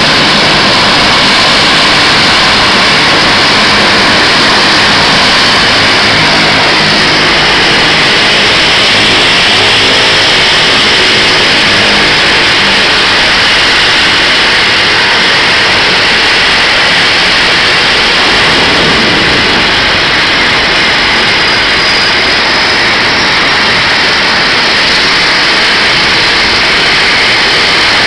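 Bombardier Dash 8 Q300's turboprop engines running at idle on the stand: a loud, steady whine and propeller noise that holds even throughout.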